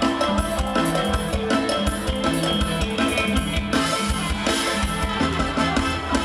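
Live band playing an instrumental passage of an Isan mor lam pop song: a drum kit keeps a steady beat of kick and snare under a bass line that steps between notes.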